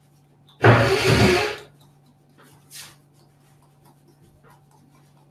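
A man's forceful voiced breath out, a 'haa' about a second long, comes near the start. It is followed by faint, scattered light clicks of teeth tapping together during a qigong self-massage.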